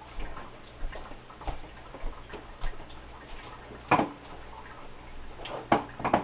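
Scattered light clicks and knocks of kitchen things being handled while salt is fetched, with one louder knock about four seconds in, over a faint steady room hum.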